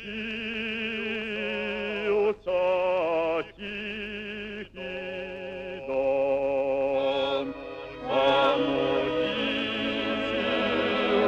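Background music: an operatic voice singing held notes with wide vibrato, in short phrases. It grows fuller about eight seconds in.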